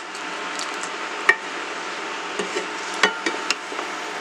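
Spatula stirring chicken curry in a non-stick kadai over a steady sizzle, scraping and knocking against the pan: one sharp knock about a second in, and a quick run of knocks around three seconds in.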